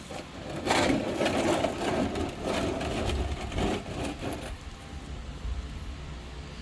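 Hand tools and small metal parts clicking and clattering in quick irregular runs, starting about a second in and dying down after about four seconds.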